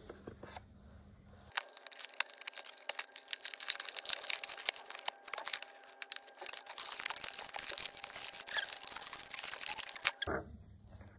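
Action figure's clear plastic blister pack being handled and pried open, with scattered sharp clicks and crackles. Then about three seconds of continuous plastic crinkling and tearing as the figure is freed from its plastic wrap, stopping abruptly.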